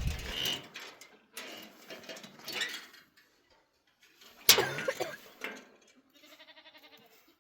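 Bursts of scraping, rustling noise with a sharp knock about four and a half seconds in, then a quavering bleat from the sheep flock near the end.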